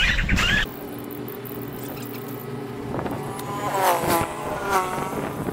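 Motorbike engine running at a steady low speed, then revving up and down in the last couple of seconds.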